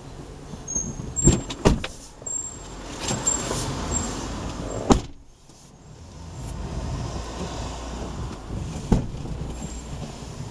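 Road traffic rumbling past, swelling and fading, with a few sharp knocks or clicks, the loudest about five seconds in.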